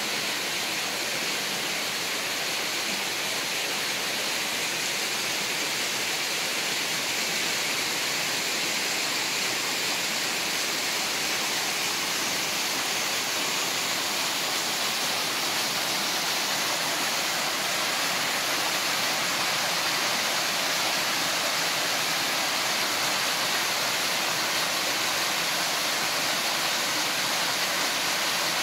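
Small waterfall pouring over a dry-stone wall onto rocks: a steady rushing of falling water, a little louder in the second half.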